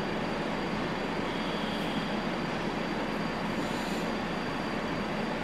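Steady background hiss with a faint high-pitched whine.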